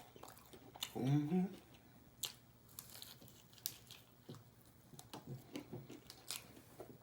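Close-up mouth sounds of a person biting and chewing crunchy food: scattered wet clicks and crunches, with a short hummed voice sound about a second in.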